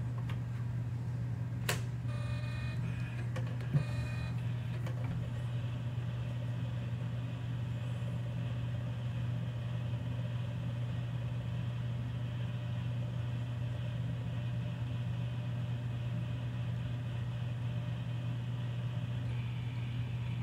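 Imation SuperDisk LS-120 drive spinning and reading a freshly inserted LS-120 disk: a steady whirring hum, with a click about two seconds in followed by a few seconds of buzzing chatter, then a steady faint whine.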